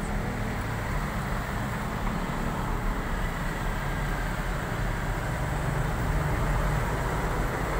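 Steady road traffic noise from cars on the adjacent street, a continuous low rumble that grows a little louder in the second half.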